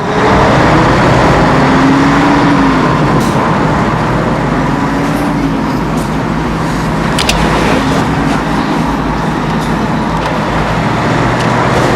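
Car on the move: steady engine and road noise.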